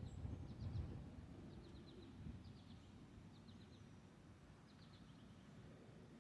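Faint bird chirping: short runs of three or four quick high notes, repeating every second or so, over a low outdoor rumble that eases after the first second.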